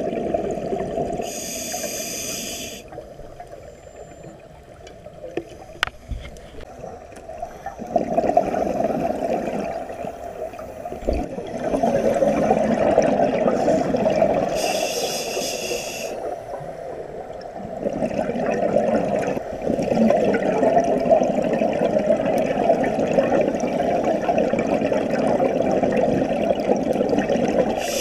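Scuba diver breathing through a regulator underwater: long bubbling rushes of exhaled air, with a brief hiss of inhaling through the regulator three times, about 13 seconds apart.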